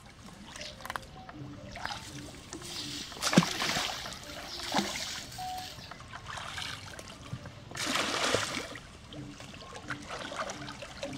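Muddy pond water splashing and sloshing as a person wades through it, dragging a long fishing pole through the shallows, with three louder splashes.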